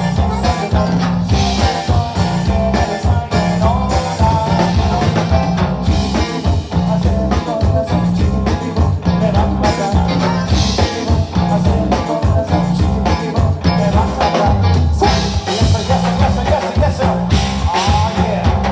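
Live conjunto music: button accordion carrying the melody over electric bass, drum kit and acoustic guitar, with a steady beat.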